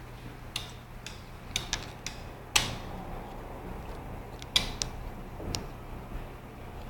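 A series of irregular sharp clicks and light knocks, about ten of them, the loudest about halfway through the first half, over a steady low hum.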